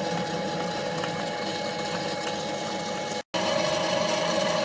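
Homemade milling machine running, its milling cutter cutting along a heavy metal guide rail: a steady mechanical whine over the cutting noise. It cuts off abruptly a little after three seconds and starts again at once with a slightly lower steady tone.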